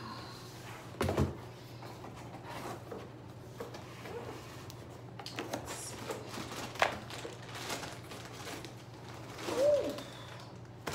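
Cardboard boxes being handled: a low thump about a second in as the boxed blanket is set down, then scattered knocks, scrapes and flap noises of cardboard being opened, with one sharp click near the middle. A steady low hum lies underneath, and there is a brief pitched vocal sound near the end.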